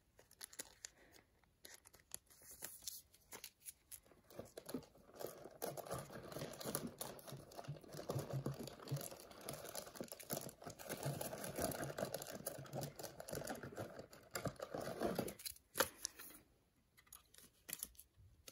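Faint rustling and crinkling of trading cards and their packaging being handled, with scattered small clicks and taps; the rustling is thickest through the middle and thins out to a few taps near the end.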